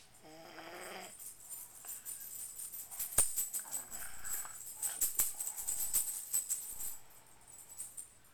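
A short wavering snore-like sound, then small metal pieces jingling with light clicks for about six seconds.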